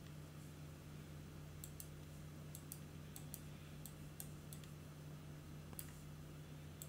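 Faint computer mouse clicks, about a dozen at irregular intervals, over a steady low electrical hum.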